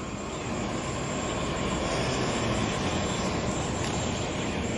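Steady city traffic noise from vehicles passing on a multi-lane avenue, including a box truck and cars: an even rumbling hum of engines and tyres.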